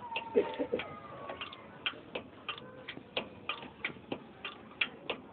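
Light, sharp metallic clicks at an uneven pace, about three a second, from hand-tool work on a truck's leaf-spring bolt.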